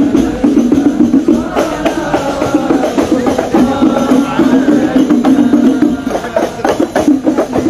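Hand frame drums (rebana) of a hadrah group beaten in a dense, busy rhythm, with voices singing along.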